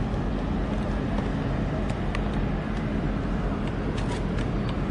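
Steady low engine rumble with a faint hum, heard from the water as a large container ship passes close by. A few light clicks come in about two seconds in and again near the end.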